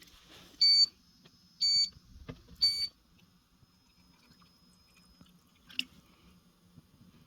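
Three short, high electronic beeps about a second apart from the hot water mat's control unit, followed by a faint steady high tone and a single sharp click about six seconds in.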